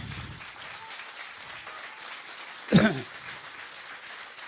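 Audience applauding, a steady patter of many hands. About three seconds in, one short loud vocal sound cuts through, falling in pitch.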